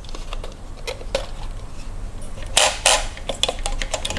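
Small plastic clicks and clatter from handling an RC car's radio transmitter, with two louder rustling scrapes about two and a half seconds in.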